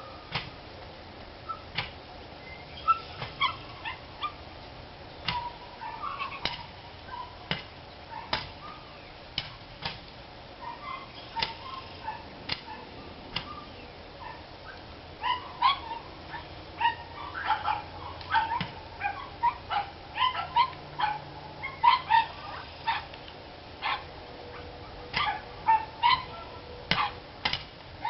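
Several dogs barking and yipping in short, excited bouts, the barks coming thicker and faster in the second half. The barking is not the usual kind; the neighbour takes it to be set off by a car driving up, maybe to take some of the dogs away.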